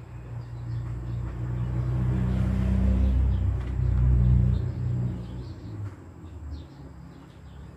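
Low engine rumble of a passing motor vehicle, building to a peak a few seconds in and then fading away.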